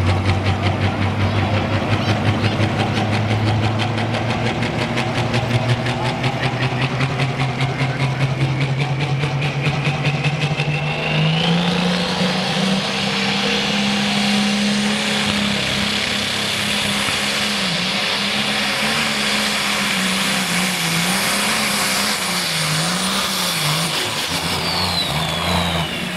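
Turbocharged diesel engine of a John Deere super stock pulling tractor running hard: a deep pulsing note climbs slowly, then about halfway it revs up sharply with a rising whine. It holds high revs with the pitch wavering up and down as the tractor pulls the sled.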